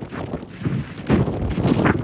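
Wind buffeting the microphone in uneven gusts, growing louder about a second in.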